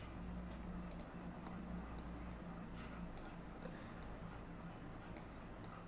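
Computer mouse clicking a few times, some clicks in quick pairs, as marker points are placed, over a faint low steady hum.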